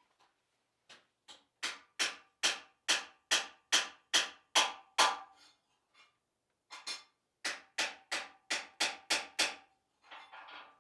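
Hand hammer striking steel at about two blows a second, each blow ringing briefly: a run of about nine blows, a short pause, then about eight more, followed by a brief clatter near the end.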